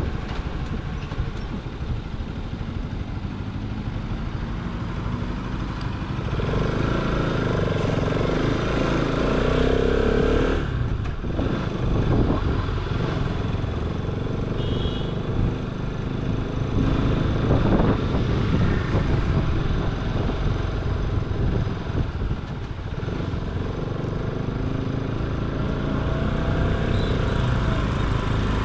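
Motorcycle engine running under way, with road and wind noise; the engine note and loudness rise and fall several times as the throttle changes.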